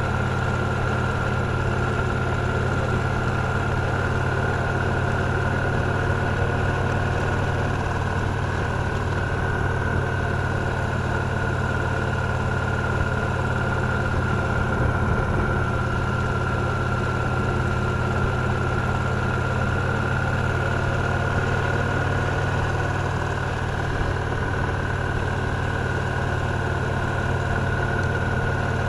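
Victory Cross Roads Classic LE motorcycle's 1700 cc V-twin engine running steadily at an even pitch.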